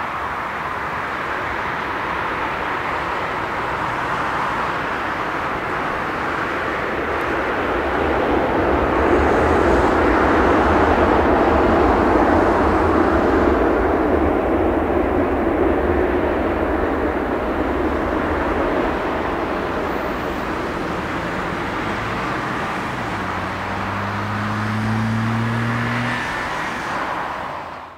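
Jet engine noise of a Boeing 767-300ER airliner rolling out on the runway after touchdown, a steady roar that swells about a third of the way in and then eases. Near the end a low droning tone rises slightly in pitch.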